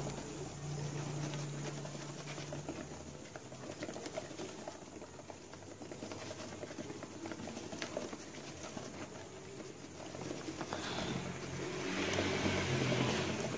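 Syrian hamsters scurrying across a hard floor: their paws patter and scrabble with many small sharp clicks, scattering wood-shaving bedding. A low hum sits underneath for the first few seconds, and louder rustling comes near the end.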